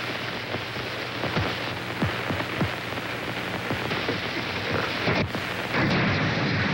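Player piano music, faint under the heavy hiss and crackle of a worn early-1930s optical film soundtrack.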